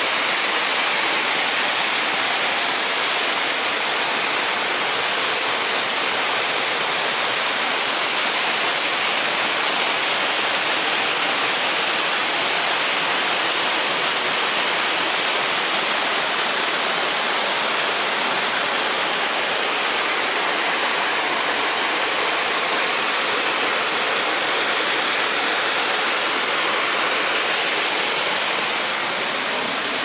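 Waterfall pouring over a rock ledge into a pool, a loud, steady rush of falling water.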